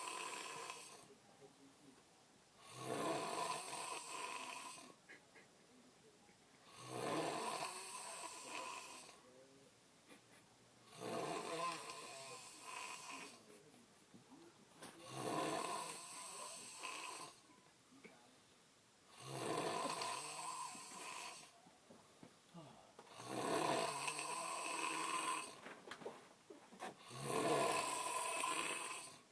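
A person snoring steadily, one long snore about every four seconds, each lasting around two seconds.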